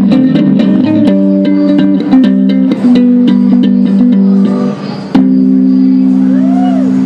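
Electric bass guitar played solo through an amplifier: quick plucked and tapped notes over a steady held low chord. A sharp pluck about five seconds in leaves one chord ringing on.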